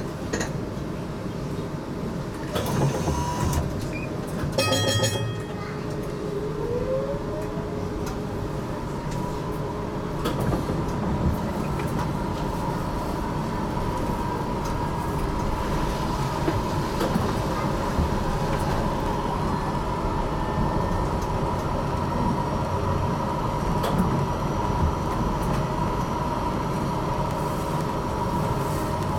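HTM GTL8 tram running on its rails, heard from inside the car with a steady wheel-and-rail rumble. About five seconds in a short pulsing tone sounds. Just after it a whine rises in pitch and settles into a steady high hum as the tram's electric drive pulls away.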